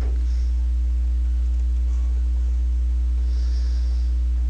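Steady low electrical mains hum with fainter higher overtones, unchanging.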